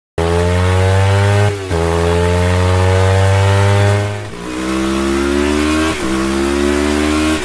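Motorcycle engine accelerating hard through the gears. The pitch climbs steadily, then drops sharply at each upshift, three times, and the sound starts abruptly.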